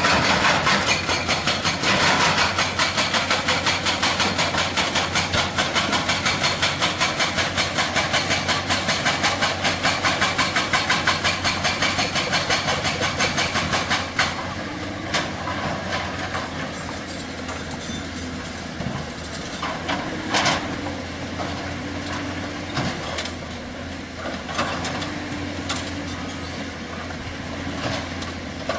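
Excavator-mounted hydraulic rock breaker hammering rock in a fast, even run of blows, several a second, which stops about halfway through. After it stops, the excavator's diesel engine runs with a few scattered clanks, and the hammering starts again at the very end.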